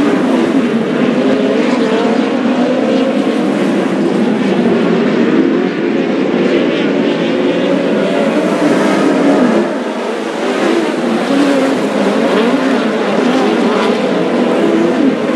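A field of open-wheel dirt-track race cars racing around the oval, several engines overlapping with their pitch rising and falling as the cars go through the turns.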